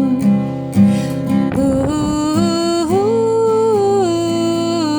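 Music: a worship song, a voice singing without words over guitar, rising into a long held note in the second half.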